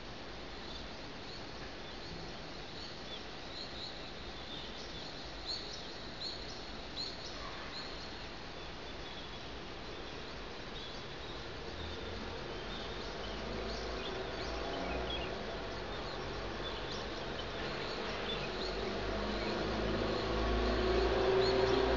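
Outdoor ambience with small birds chirping in quick short calls, mostly in the first half. From about halfway a low engine rumble builds, growing steadily louder toward the end, like a vehicle approaching.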